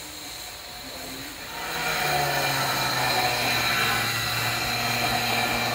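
A power tool starts up about two seconds in and runs steadily, a low hum under a broad hiss.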